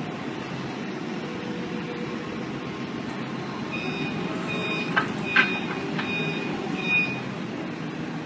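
Heavy machine engine running steadily, with a reversing alarm beeping about five times in the middle. Two sharp knocks come about halfway through.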